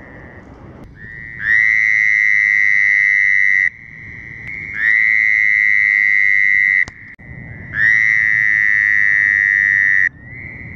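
Male Fowler's toad calling with its single vocal sac: three long, high-pitched screams, each about two seconds and opening with a short upward slide. Other Fowler's toads call more faintly in the gaps between them.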